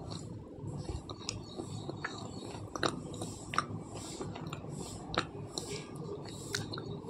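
Close-up mouth chewing and crunching on pieces of slate pencil, with a sharp, brittle crunch every second or so over steady grinding chews.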